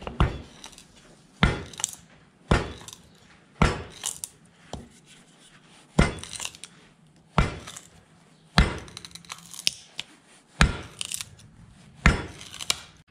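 Wood chisel struck with a mallet, chopping into a wooden knife-handle blank: about ten sharp knocks, roughly one a second, a few followed by a lighter tap.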